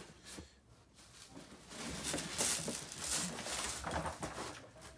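Rustling and crinkling of packaging as parts are handled and taken out of a box, in uneven bursts that grow busier about a second and a half in.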